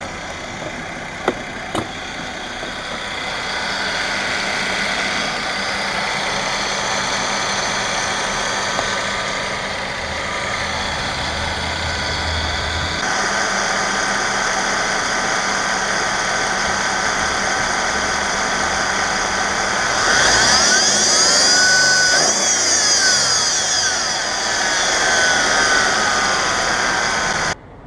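Mercedes-Benz E350 engine running with a steady high-pitched whine from the accessory belt drive, which the owner traces to a worn idler pulley. About twenty seconds in, the whine sweeps up and down in pitch for a few seconds.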